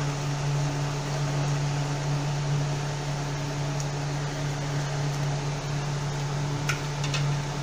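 Steady electric hum of a fan motor, even and unchanging, with a couple of faint clicks of the spoon against the pan near the end.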